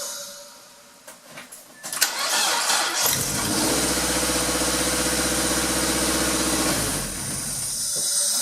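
Mazda Protege 2.0-litre four-cylinder engine cranked over by its starter about two seconds in, catching about a second later and running steadily for about four seconds before dropping away. The starter now turns the engine over after its ground strap was moved from a factory bracket directly to the transmission housing.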